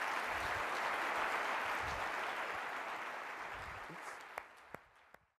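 Audience applauding at the end of a talk, fading out over the last couple of seconds, with a few last separate claps before it cuts off.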